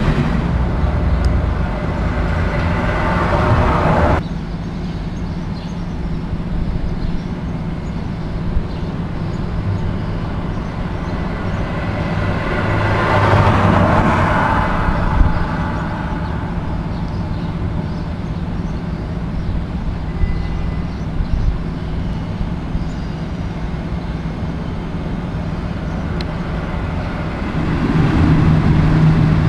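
Trains running through a railway station. For the first four seconds a locomotive's engine runs with a low hum, ending suddenly at a cut. A quieter rumble and hiss of approaching trains swells around the middle. Near the end another train arrives with a louder, steady low engine hum.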